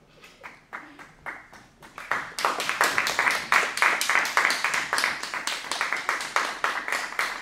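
Audience applause: a few scattered claps at first, building into dense, steady clapping about two seconds in.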